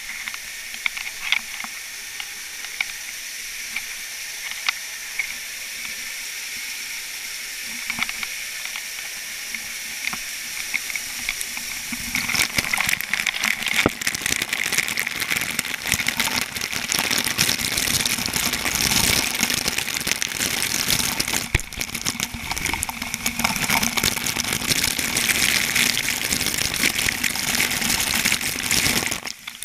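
Water from a dam outlet pouring and splashing in a steady rushing hiss, with a few sharp clicks in the first part. About twelve seconds in it becomes louder and fuller.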